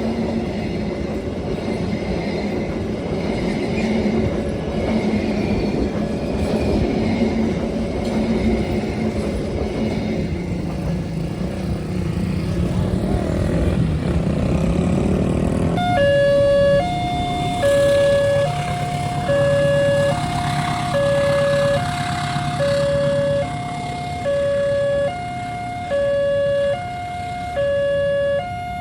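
A train rumbling through a level crossing. About halfway in, the crossing's electronic warning siren starts: two notes alternating, each held for under a second, in an even hi-lo pattern.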